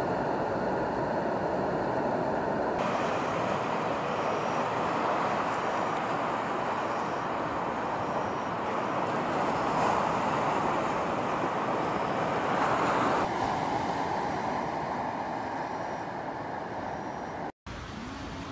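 Steady rushing noise of fast-flowing floodwater. It changes in tone about three seconds in and again about thirteen seconds in, cuts out for a moment near the end, then comes back quieter.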